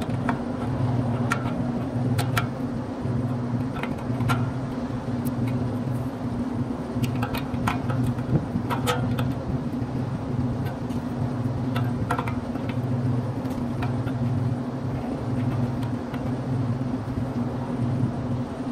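Steady low mechanical hum of nearby running machinery, with scattered light metallic clicks and taps as an adjustable wrench works the setscrew on a condenser fan blade's steel hub.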